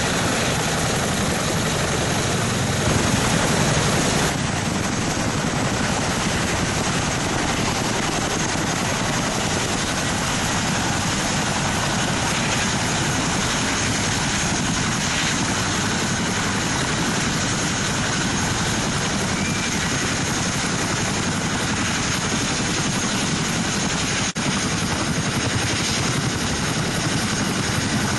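Boeing CH-47 Chinook tandem-rotor helicopter running close by: loud, steady rotor and turbine noise. The sound changes suddenly about four seconds in and again near the end.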